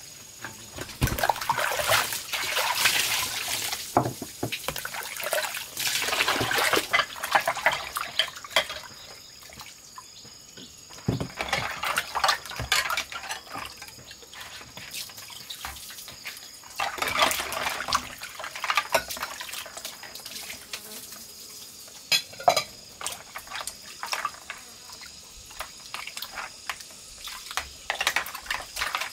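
Dishes being washed by hand in a plastic basin of water: water sloshing and splashing in uneven bursts as bowls and a bundle of chopsticks are scrubbed, with scattered clicks and clacks of chopsticks and bowls knocking together.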